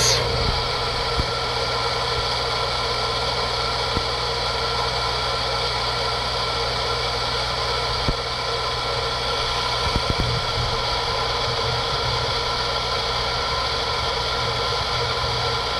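Goulds water pump running steadily against a shut-off outlet, a constant hum: it is deadheading, building pressure toward its maximum.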